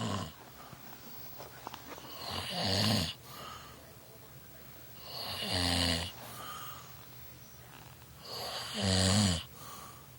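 A man snoring in his sleep: three long snores about three seconds apart, each building up and cutting off sharply, with a fainter breath after each.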